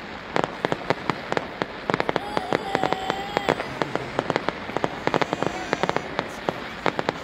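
Fireworks display: dense crackling of sharp bangs and pops from bursting aerial shells and crackling stars, several a second, with a short held tone near the middle.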